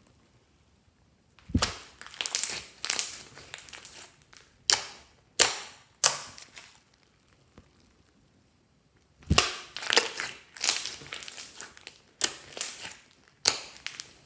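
Hands squeezing and pressing slime, giving crackling, popping noises in two bouts. Between the bouts come three sharp single pops and then a few seconds' pause.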